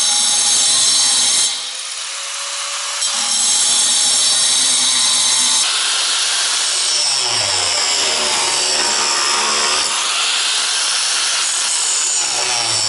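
Angle grinder scoring and grinding a V-groove across steel flat bar: a loud, steady high whine with the pitch wavering as the wheel bites. It drops off briefly about a second and a half in, then resumes.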